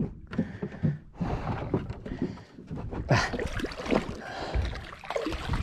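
Irregular knocks and clatter on the deck of a small fishing boat.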